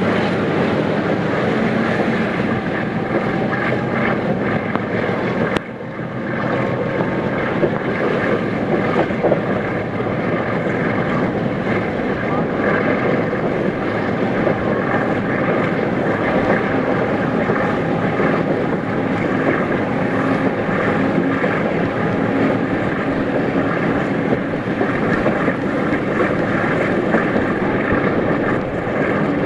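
Steady rumble and rushing of a moving train, with wind on the microphone; the sound drops briefly about five and a half seconds in.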